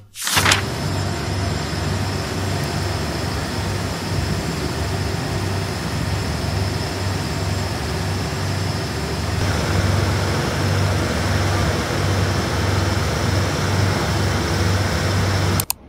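Steady rain and city street traffic noise, a constant hiss over a low, pulsing engine rumble.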